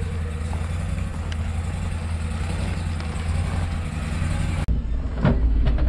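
Vehicle engine idling steadily with a low hum, cut off abruptly near the end, followed by a few knocks.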